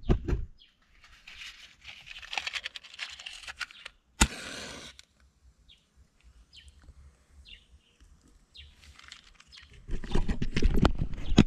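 A match struck about four seconds in, a sharp scrape flaring into a short hiss, to light dry grass kindling in a charcoal stove; near the end the dry grass catches and crackles loudly as it burns.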